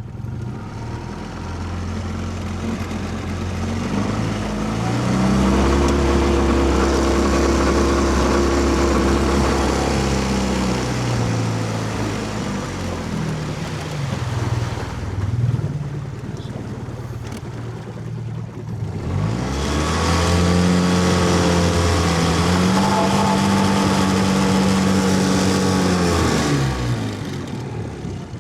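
A 15 hp four-stroke outboard motor is run up to high revs twice, held wide open for several seconds each time, then eased back down. Warmed up, it is missing badly at high rpm: a misfire the owner is still trying to trace, possibly to the ignition coil.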